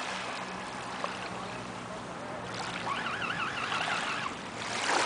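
Remote-control model fishing boat's motor humming steadily over water and outdoor noise, the hum fading after about three seconds. A warbling, whistle-like tone with a quick wobble comes in the middle, and a brief rush of noise near the end.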